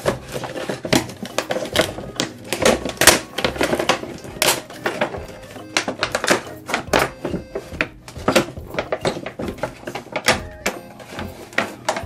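Clear plastic packaging crinkling and a cardboard box rustling and knocking as a remote-control toy ATV is unpacked by hand: dense, irregular sharp crackles with a few louder knocks.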